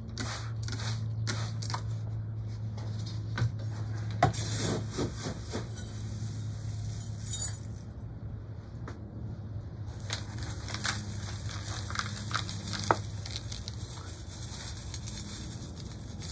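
Granular bonsai soil being poured and worked into a pot: gritty particles trickling and rattling, with irregular small clicks and scrapes and a few sharper knocks. A steady low hum runs underneath.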